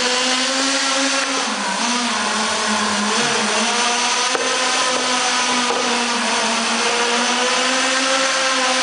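Small nitro engine of a radio-controlled car buzzing at high revs while the car drives, its pitch wavering up and down a little with the throttle, with a brief dip about a second and a half in.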